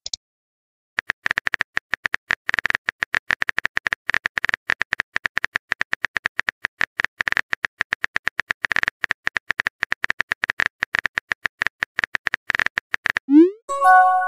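Rapid, irregular tapping clicks of a phone keyboard as a message is typed. About a second before the end comes a short rising swoop and then a brief chiming tone, a messaging-app alert sound.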